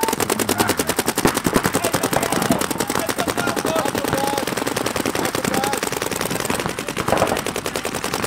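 Many paintball markers firing rapidly at once, a dense, even stream of shots overlapping into a continuous rattle.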